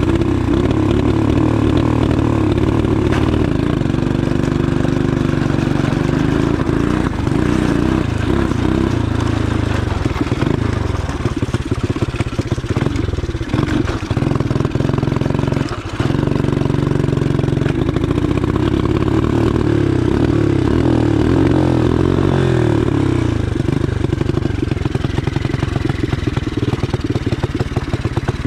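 Shineray 250cc STXE motorcycle's single-cylinder engine running, the revs rising and falling under the throttle, with a few brief drops in engine speed around halfway.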